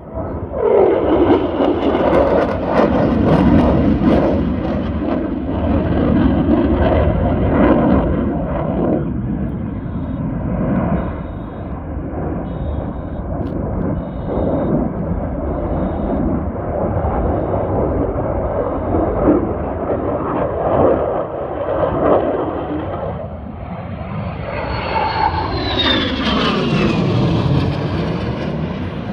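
F-35 fighter jet's single afterburning turbofan engine running loud as the jet flies an air-show display pass. The noise rises sharply at the start and carries on throughout, with a high whine sweeping down in pitch near the end as the jet goes by.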